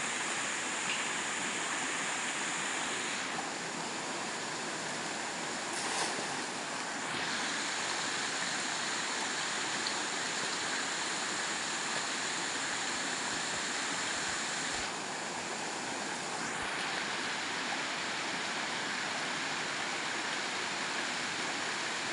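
River rapids rushing over rocks, a steady noise of fast shallow water.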